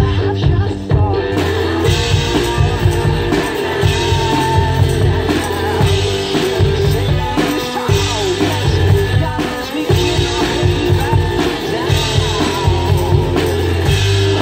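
One-man band playing live: drums kept with the feet under guitar and singing, with a strong steady bass line.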